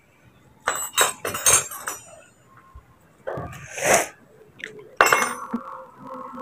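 Metal parts and tools clinking and clattering several times, with a longer rustling sound in the middle, as a gas stove is being worked on.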